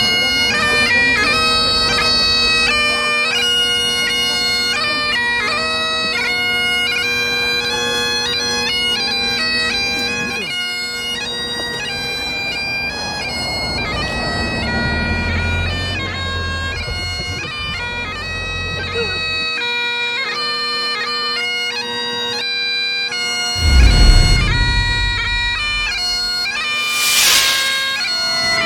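Scottish bagpipe playing a melody over its steady drones, the chanter moving from note to note. A loud rushing noise breaks in twice near the end.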